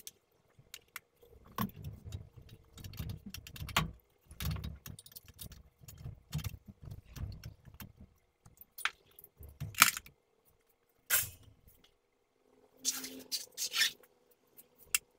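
Loose steel bolts and washers clinking in a metal parts pan, with hand tools knocking against metal: irregular clicks and clatters with duller knocks between them.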